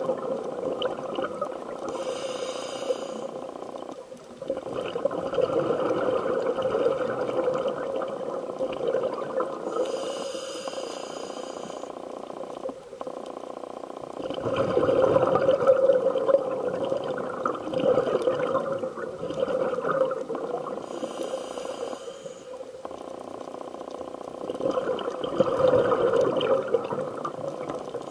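Scuba diver breathing through a regulator underwater, muffled through the camera's underwater housing: three short hisses of inhaling, with longer gurgling surges of exhaled bubbles between them.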